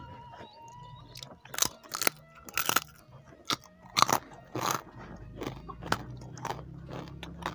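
A crisp kerupuk cracker being bitten and chewed close to the microphone: a run of irregular sharp crunches, loudest around the second and fourth seconds.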